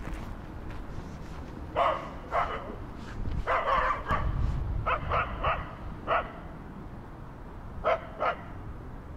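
A dog barking in short, sharp barks: a pair, then a run of several, then a last pair near the end.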